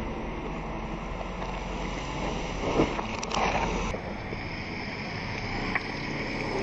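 Car tyre rolling slowly onto a large plastic soda bottle on gravel. About halfway through, the plastic crackles and crunches under the weight, and near the end there is one short sharp pop as the bottle bursts and sprays soda. Steady wind and engine noise runs underneath.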